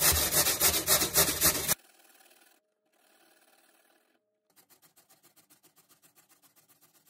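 Raw potato being grated by hand on the fine side of a metal box grater: quick rasping strokes, about five a second. The strokes are loud at first and cut off suddenly about two seconds in; after a short gap they go on much fainter.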